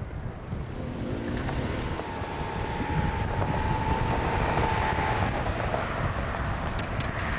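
Opel Frontera 4x4 SUV driving by on a dirt track, its engine revving up about a second in and getting louder as it passes close, with a thin steady whine over the engine for a few seconds. Wind rumbles on the microphone underneath.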